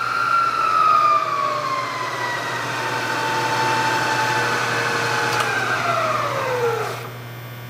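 Bridgeport Series 1 milling machine's 2 hp head running, a high, steady spindle whine from a top end freshly rebuilt with new bearings, belts and bushings in the vari-speed drive. About a second in the whine begins sliding lower in pitch as the spindle slows, then near the end it drops quickly and dies away as the spindle spins down, leaving a low steady hum.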